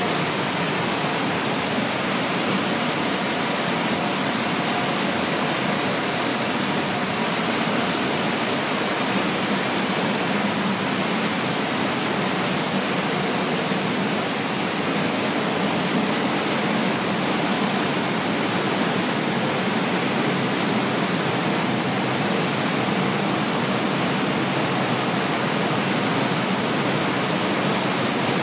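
Steady, even rushing noise of a rail-car coal unloading system at work, its main discharge conveyor running and carrying coal.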